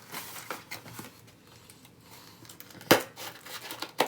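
Scissors cutting and plastic packaging rustling as a box of bed-frame parts is opened, with a sharp snap about three seconds in and another near the end.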